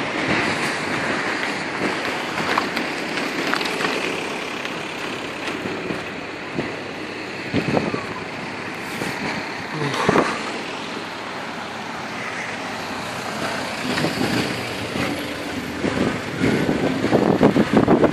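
Road traffic passing on a wet, snowy street: a steady rushing noise with a few sharp knocks around the middle, growing louder near the end.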